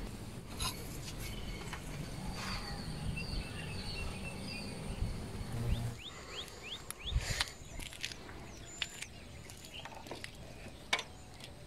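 Birds chirping in the background, with a few light clicks and a knock from kitchen utensils being handled.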